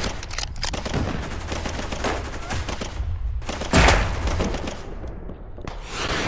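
Battle gunfire: a rapid, dense volley of rifle and machine-gun shots, with a single louder shot just past the middle and another near the end, over a constant deep rumble.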